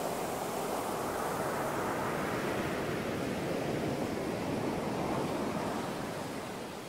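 Ocean surf breaking on a beach: a steady rushing wash of waves that swells a little and eases off near the end.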